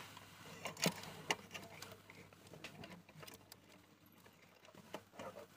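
Faint clicks and light taps of fingers handling a small circuit board and its thin wires, with two sharper ticks about a second and a second and a half in.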